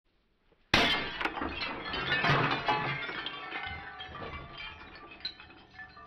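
Glass smashing: a sudden loud crash just under a second in, then shards clinking and tinkling as they settle, fading over several seconds.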